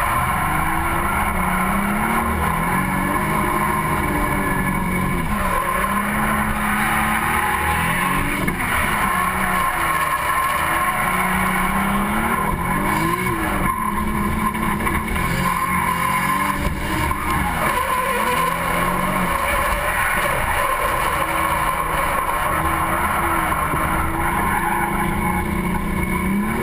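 Drift car's engine revving up and down again and again under load, with tyres screeching as it slides sideways.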